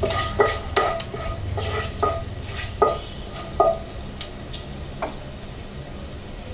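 A wooden spatula scrapes and knocks against a nonstick pan as whole spices (peppercorns, bay leaf, cinnamon, cloves) are stirred in hot oil. Each stroke makes the pan ring briefly, and the oil sizzles lightly underneath. The strokes come about twice a second at first, then thin out to a few last clicks.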